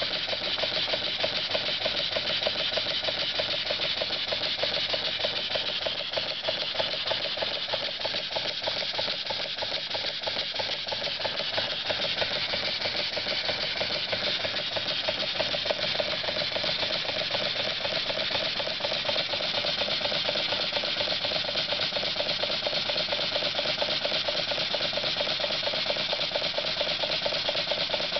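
Small double-acting model steam engine running at a steady fast speed: a rapid, even stream of exhaust beats and light mechanical clatter from its valve gear, over a hiss.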